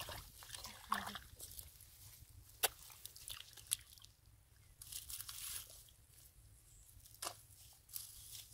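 Hands digging and squelching in wet paddy-field mud, with scattered sharp wet clicks and smacks.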